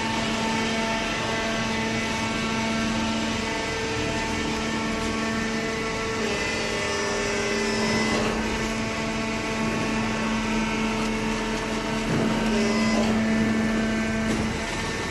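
Hydraulic power unit of a horizontal waste-paper baling press running: a steady motor-and-pump hum with a whine, growing a little louder about halfway through and again near the end.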